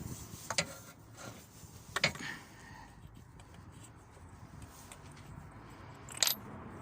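A 24mm socket and tools clinking on metal while the socket is tried on the engine's oil pressure switch: three sharp clicks, two in the first couple of seconds and one near the end.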